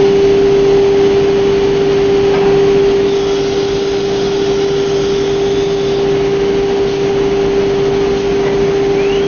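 CNC router with a disc automatic tool changer running through a tool change: a loud, steady machine drone with a strong constant hum, and a faint rising whine near the end.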